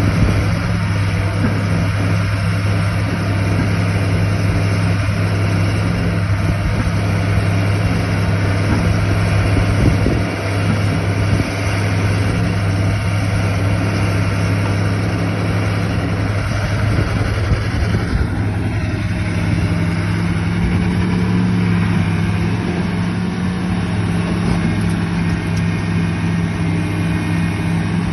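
Heavy diesel engine, likely an excavator's, running steadily with a constant low drone and no revving.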